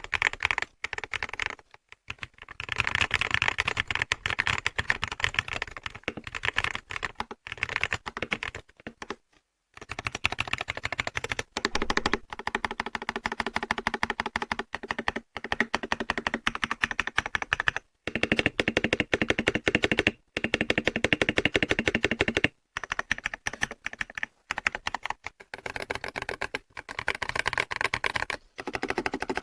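Typing sound test on a budget magnetic-switch gaming keyboard: rapid, continuous keystroke clacks with a few short pauses.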